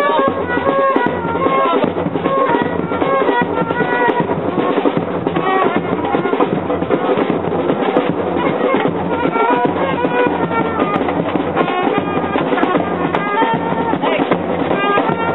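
A trumpet playing short melodic phrases over a band of drums, including a bass drum struck with a felt-headed beater, keeping up a steady beat.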